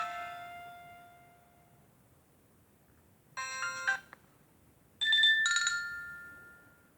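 Nokia 105 (RM-908) built-in tones. The last note of one ringtone dies away, then a short chiming tone plays about three and a half seconds in, and a two-note chime follows about five seconds in and rings out.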